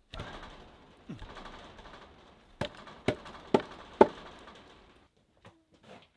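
Four sharp knocks about half a second apart, over a rustling, shuffling noise of handling and movement.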